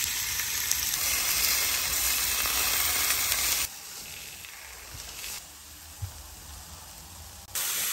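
Seasoned chicken breasts sizzling on a hot Blackstone flat-top steel griddle, a steady hiss. The sizzle drops to a quieter level a little past halfway, then comes back up just before the end.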